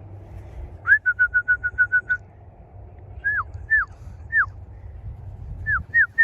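A person whistling to call racing pigeons down to the loft: a quick run of short whistles, then three separate falling whistles, then another series of falling whistles near the end.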